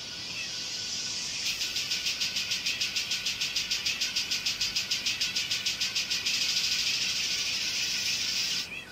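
Electronic dance music leaking thin and tinny from OnePlus Bullets Wireless in-ear earbuds held up to the microphone, with a fast pulsing beat of about eight a second through the middle. It cuts off suddenly near the end, when the magnetic earbuds are clipped together and playback stops.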